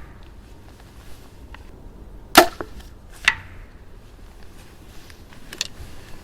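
A compound bow is shot once, giving a sharp snap as the string is released. Just under a second later comes a fainter crack as the arrow strikes the target.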